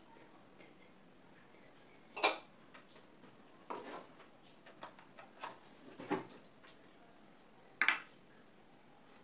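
Small steel sewing-machine parts clinking and clicking as they are handled and put down, in scattered separate knocks, with two sharper metallic clinks about two seconds in and near the end.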